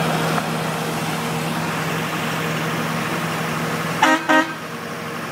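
1988 Trackmobile 95TM railcar mover's Detroit Diesel engine running steadily, and about four seconds in its horn gives two short toots.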